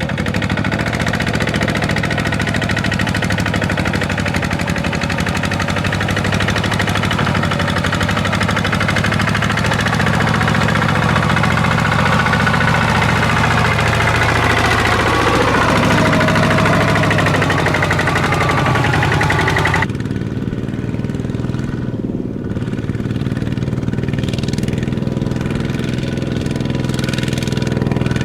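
Walking tractor's diesel engine running hard under load, its pitch sagging and picking up again around the middle. About two-thirds of the way through the sound turns abruptly duller, the engine still running.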